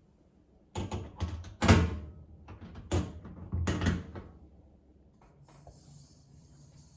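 Several hard knocks and clatters, about five, the loudest about two seconds in, each with a short ringing after it. A faint hiss follows near the end.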